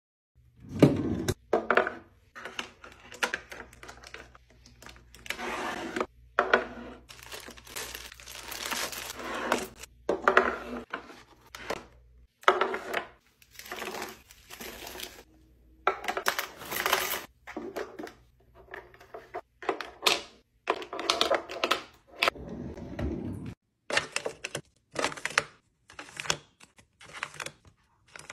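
Plastic-wrapped toiletries and packets crinkling and rustling as they are handled, with sharp clicks and taps as they are set into clear plastic drawer organizers, in a long run of short bursts with brief gaps.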